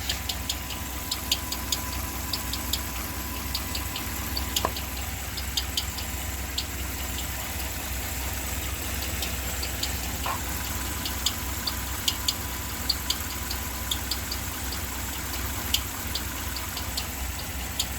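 A 5.7 Hemi V8 idling steadily, with a high, irregular chirping tick coming from inside the engine, the noise the customer likens to a chick inside. The mechanic suspects a lifter roller breaking up and damaging a camshaft lobe, a common fault on these engines.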